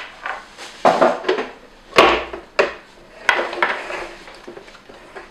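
An electric contact grill being unpacked and handled: a string of sharp clunks and knocks as it is lifted out of its wrapping and set down on a countertop, with some rustling between them. The loudest knock comes about two seconds in, and it grows quieter near the end.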